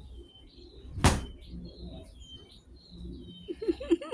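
Small birds chirping repeatedly in the background, with one sharp knock about a second in and a quick run of short pitched calls near the end.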